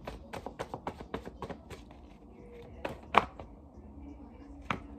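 A deck of tarot cards being shuffled by hand: quick card taps about five a second, stopping about two seconds in, then a few single card clicks, the loudest about three seconds in.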